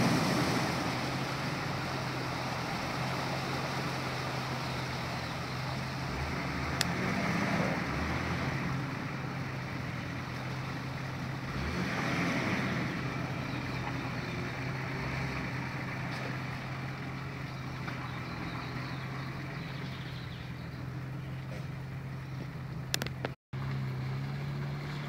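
4x4 truck engine running steadily with a low hum while the truck works through a muddy water hole, swelling a couple of times. The sound cuts out for a moment near the end.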